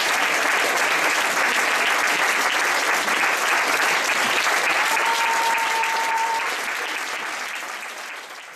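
Audience applauding, a dense, steady clapping that fades away near the end. A short steady tone sounds briefly about halfway through.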